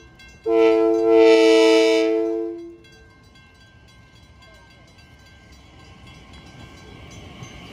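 A Kawasaki M9 electric train's air horn sounds one long chord blast of about two seconds, part of the grade-crossing horn sequence. After it cuts off, the rumble of the train grows as it rolls into the crossing.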